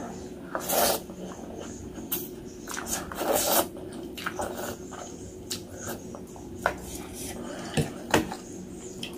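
Close-miked eating sounds: noodles being slurped and meatballs chewed, in irregular wet bursts, with a few sharp clicks of utensils near the end.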